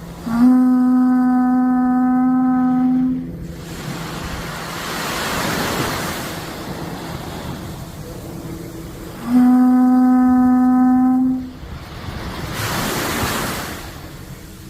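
Horagai conch shell trumpet blown in two long, steady low blasts, each held about two to three seconds on one note. Between the blasts a rushing noise swells and fades.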